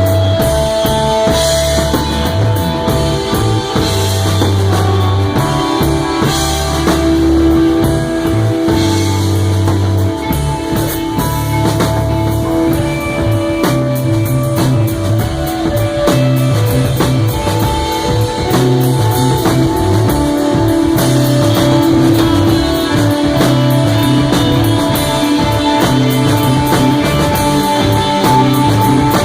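Live rock band playing loud, with no singing: drum kit with cymbals, bass guitar holding long low notes that change every second or two, and electric guitar. About halfway through, the bass line breaks into a quicker, choppier pattern.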